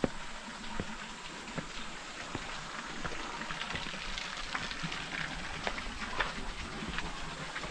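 Small waterfall splashing onto rocks: a steady rush of falling water with many short, sharp splashes and drips scattered through it.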